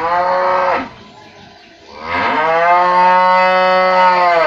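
A cow mooing twice: a short moo that ends under a second in, then a longer, loud one from about two seconds in to the end.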